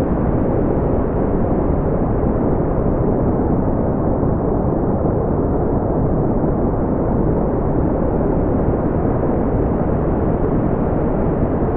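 Steady synthetic brown noise: an even, deep rushing hiss with most of its weight in the low end, and no changes.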